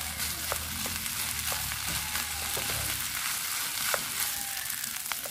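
Cooked rice frying in oil in a nonstick pan, with a steady sizzle. A wooden spatula stirs and breaks up the rice, making a few short taps against the pan.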